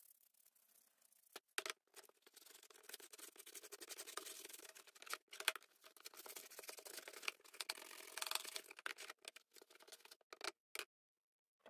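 A toothbrush scrubbing rusty needle-nose pliers in a tub of liquid: steady, scratchy brushing that starts after a couple of clicks about a second and a half in and stops shortly before the end.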